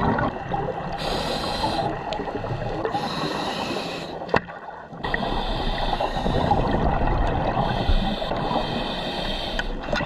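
Underwater sound of a scuba diver breathing through a regulator: a hiss with each inhalation, four in all, alternating with the rumble and gurgle of exhaled bubbles. A single sharp click about four and a half seconds in.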